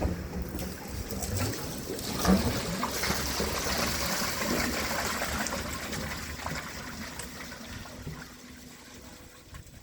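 Water draining out of an IOPAK 500L twin cooking tank through the bottom drain pipework: a rushing hiss that builds a couple of seconds in, then slowly dies away as the flow eases. There is a short knock just after two seconds.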